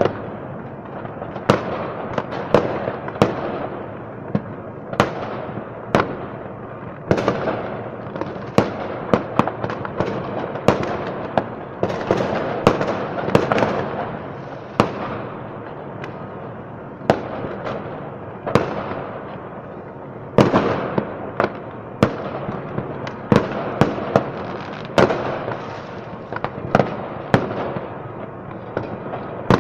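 New Year's Eve fireworks across a city: rockets and firecrackers going off in an irregular string of sharp bangs, some loud and close, over a continuous crackle of many more bangs further away.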